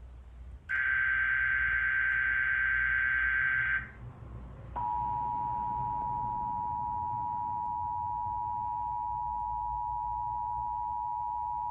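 Emergency Alert System broadcast tones. About three seconds of screeching, warbling digital data tones make up the SAME header. After a short gap, the steady two-tone EAS attention signal starts about five seconds in and holds.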